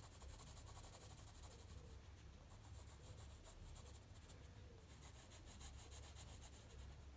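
Faint scratching of a graphite pencil on sketchbook paper, shading in eyebrows with runs of quick back-and-forth strokes.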